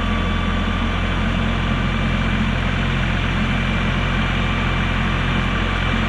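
LS MT342 compact tractor's diesel engine running steadily while its front loader lifts a full bucket of dirt.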